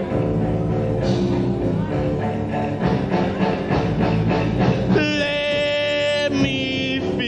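Early rock and roll band playing live. About five seconds in, a long held note with many overtones rings out for over a second.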